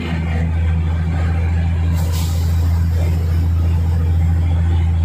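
Diesel railcar engine running with a steady low drone, heard from on board the train. A brief hiss of air cuts in about two seconds in.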